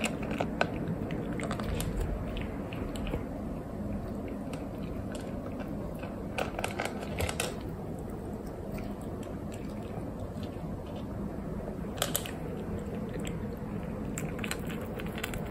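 Kitten eating dry kibble from a bowl, with irregular small crunches and clicks of chewing.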